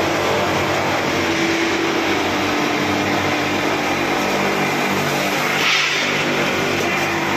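Electric motor spinning a buffing wheel, running steadily with a hum and a rushing hiss as steel plates are polished against the wheel. A brighter hiss rises briefly just before six seconds in.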